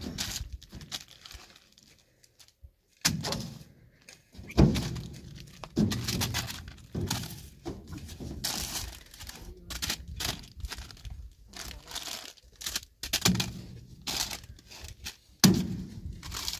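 Irregular thuds and knocks mixed with crackling and tearing sounds, the loudest thud about four and a half seconds in and another near the end.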